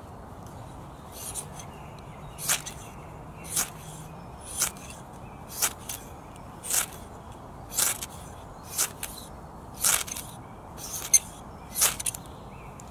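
Ferro rod scraped hard with a steel striker, about eleven short rasping strikes roughly a second apart, throwing sparks onto birch bark to light a campfire.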